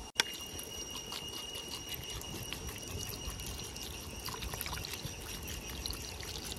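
Water in a cooking pot bubbling and trickling with a steady, fine crackle, the pot of chicken coming up to the boil. Two steady high tones run behind it.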